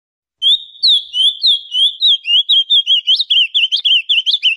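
Male ultramarine grosbeak (azulão) singing: a loud run of short whistled notes that starts about half a second in. The first few notes are longer slurs, and the rest follow in a faster, choppier stream.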